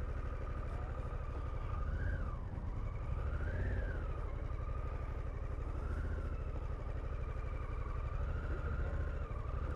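Harley-Davidson Pan America's 1250 cc V-twin running at low revs while the bike crawls at walking pace on the clutch, with a faint whine that rises and falls in pitch.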